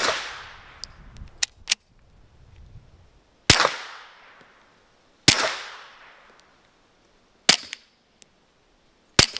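Five suppressed 9mm pistol shots from a Glock 48 MOS fitted with a Dead Air Wolfman suppressor, fired one at a time a second or two apart. Each is a sharp crack with a trailing echo. A few faint clicks follow the first shot.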